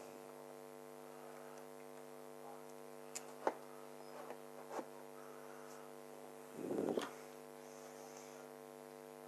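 Steady electrical mains hum, with a few faint clicks and one short louder noise about seven seconds in.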